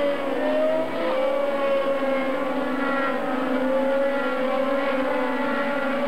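Several IndyCar race cars' 2.2-litre twin-turbo V6 engines running hard through a corner, their overlapping engine notes rising and falling as the cars pass.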